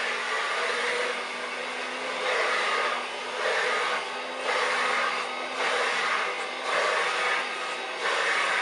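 A 1930s Hoover Dustette 100 handheld vacuum cleaner running steadily as it is worked over a sofa, its suction noise swelling and dropping about once a second.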